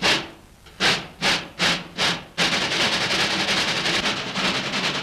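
Cartoon sound effects: five quick swishing hits, each sharp at the start and fading fast, then a steady, dense rattling noise from about halfway in.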